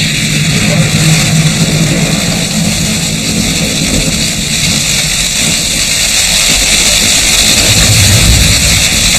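Car driving through a volcanic ash fall, heard from inside the cabin: a low engine and road rumble under a steady loud hiss, getting louder toward the end.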